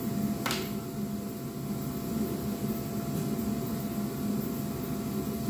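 Steady fan-like whirring hum, with one light knock about half a second in as a plastic caliper case is set down on a wooden workbench.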